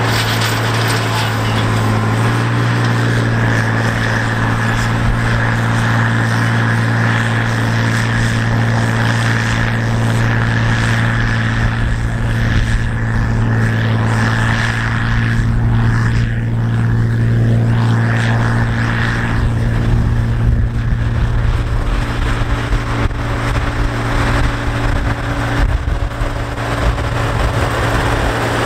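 OLIVER 1850 tractor's diesel engine running steadily under load while pulling a chisel plow through the soil, a constant low engine hum.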